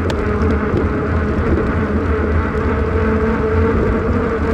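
Wind rush and road noise on a bicycle-mounted camera while riding, a steady low rumble with a thin whine that rises slightly in pitch.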